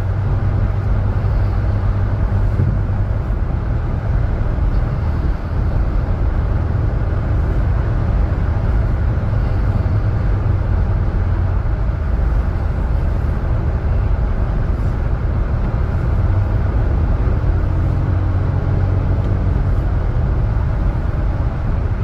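A car running, a steady low rumble of engine and road noise.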